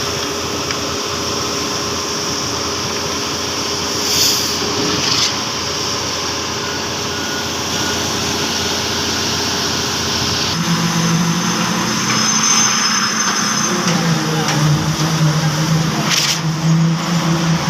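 Truck-mounted concrete pump on a Mercedes Actros with a concrete transfer machine, its diesel engine and pumping gear running steadily. About ten seconds in, the sound shifts and a deeper engine note comes in. Brief hisses come about four seconds in and again near the end.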